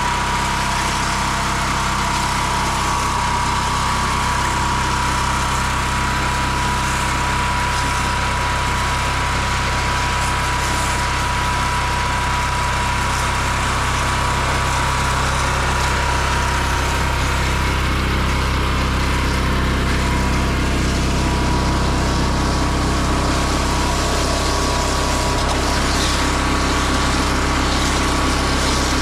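Small engine of a pressure-washing rig running steadily at constant speed, with a thin steady whine and an even hiss above it.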